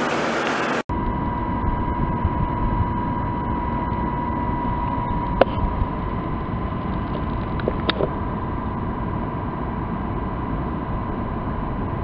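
Carrier rooftop packaged HVAC unit running: a steady rush of its fans with a constant whine, and a couple of faint clicks. The sound drops out briefly about a second in, then continues duller.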